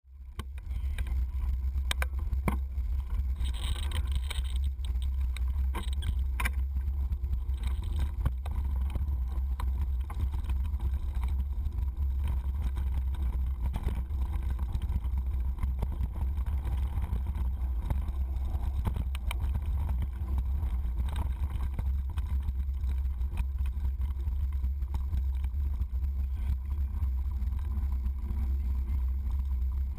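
Mountain bike riding down a rough dirt trail, heard through a stem-mounted GoPro in its housing: a steady low rumble of wind and trail vibration, with frequent clicks and knocks as the bike rattles over bumps.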